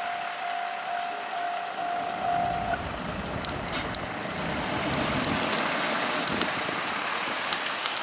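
Japanese railway level-crossing warning bell ringing as a rapidly repeating electronic tone, which stops about three seconds in as the crossing clears. Road vehicles then start moving, with engine and tyre noise, and a few light clicks come as the barriers lift.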